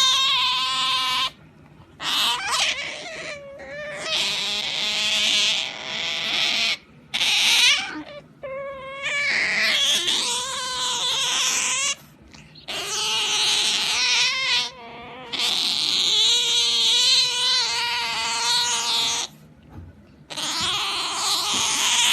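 Pet otter calling over and over: long, wavering, whining squeals lasting a few seconds each, broken by short pauses.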